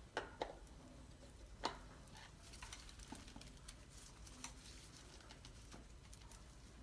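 Faint clicks and taps of a metal paint cup being handled and fitted to a spray gun, with a few sharper clicks in the first two seconds and scattered light ticks after.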